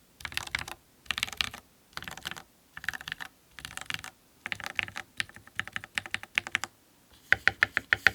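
Mechanical keyboard with Gateron Milky Yellow Pro linear switches and Cherry Olivia keycaps being typed on, in short bursts of rapid keystrokes with brief pauses between. Near the end comes a run of about eight separate, louder keystrokes.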